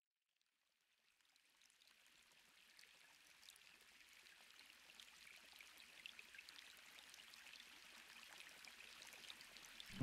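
Soft water ambience: a steady hiss of running water with scattered droplet ticks, fading in from silence about a second in and slowly growing louder.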